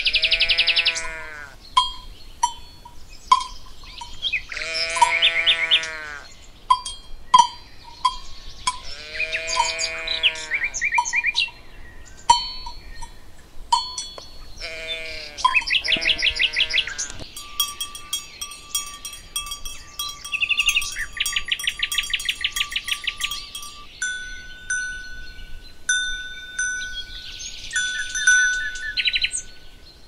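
Livestock calling about five times in long wavering calls, over bells ringing at a steady pace and birds chirping.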